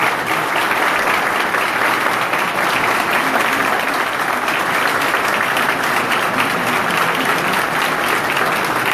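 A crowd of soldiers applauding, steady dense clapping that keeps up at an even level as the two presidents walk in.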